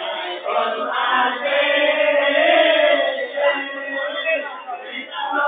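A group of men chanting a nasyid together, the voices held in long notes that swell in the middle and dip briefly near the end.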